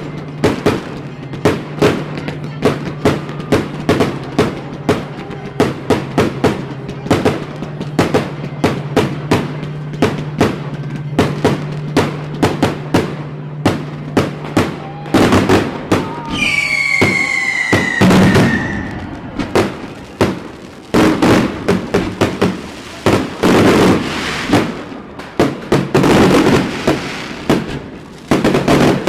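Fireworks going off in rapid succession: a dense run of sharp bangs and crackles several times a second. About halfway through, a whistling firework lets out a whistle that falls slightly in pitch over about two seconds. A steady low hum runs under the first half.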